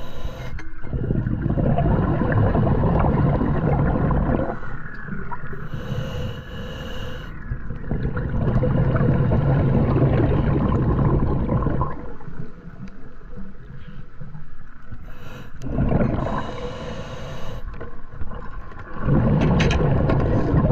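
Scuba diver breathing through a regulator underwater: long, loud rushes of exhaled bubbles about every eight seconds, with a short hiss of inhalation in the quieter gaps between.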